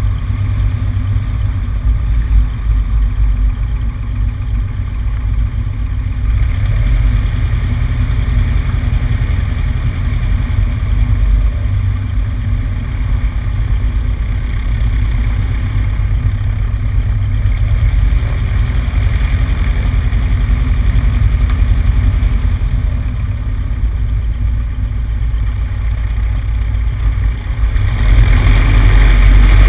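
Cessna 150's four-cylinder Continental O-200 engine and propeller running steadily at low power, heard from outside on the wing with wind noise. The sound grows louder about two seconds before the end.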